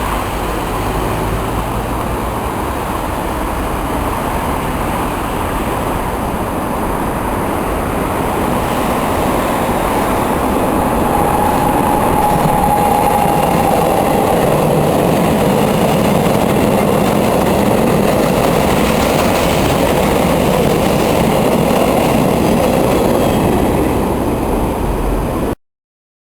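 MaK G1206 diesel-hydraulic locomotive running under load as it hauls a train of lime silo hopper wagons past, with the engine and the wagons' wheels rolling on the rails. It gets a little louder past the middle, a faint thin squeal is heard briefly near the middle, and the sound cuts off suddenly near the end.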